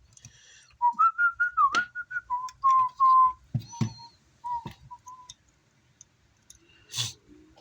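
A person whistling a short tune, higher notes first and then a run of lower notes, stopping about five seconds in. A few sharp clicks and a knock come in between.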